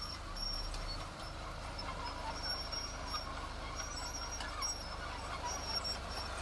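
Diesel engine of heavy construction machinery running with a steady low rumble that shifts about a second in.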